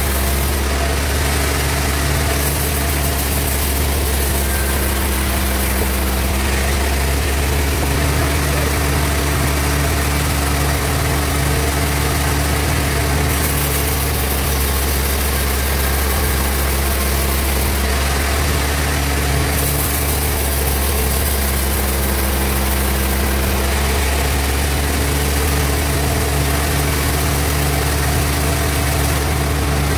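Sawmill bandsaw machine running steadily with a strong low hum. A higher hiss comes up twice, about halfway through and again a little later.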